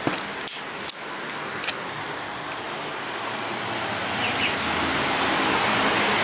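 Steady outdoor background hiss that grows gradually louder toward the balcony, with a few sharp clicks in the first two seconds from footsteps and handling.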